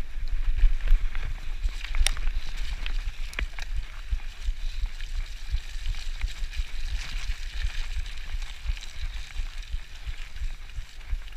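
Mountain bike running fast down a muddy dirt trail: tyre noise on the dirt under a low, fluttering wind rumble on the helmet-camera microphone, with sharp clicks and rattles from the bike, the clearest about two seconds in.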